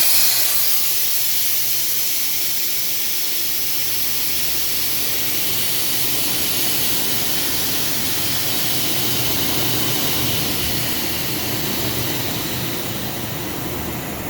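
Loud, steady hiss of a high-pressure jet that starts abruptly and holds without a break.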